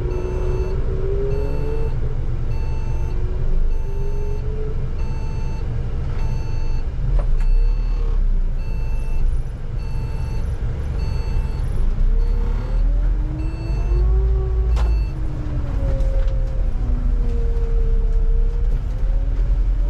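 Bus engine and drivetrain heard from the driver's cab: a low rumble under a whine that rises and falls in pitch as the bus slows and pulls away again. A short beep repeats about twice a second through the first eight seconds.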